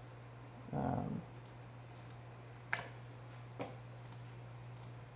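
A few computer mouse clicks as menu items and a dialog button are clicked, the clearest two about two and a half and three and a half seconds in, over a steady low hum. About a second in, a short low hum from a voice.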